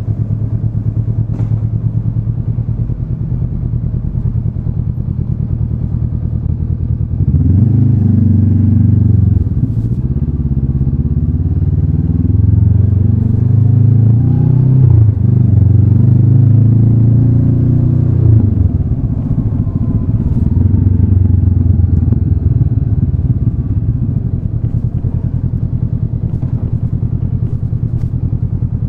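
Honda CB500X parallel-twin engine running steadily at low revs, then pulling away about seven seconds in, with the pitch rising and dropping several times through the gears for about ten seconds before it settles back to a steady low note.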